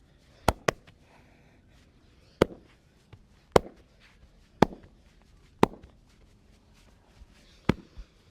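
Seven loud, sharp cracks from a massage: two in quick succession, then single ones about a second apart.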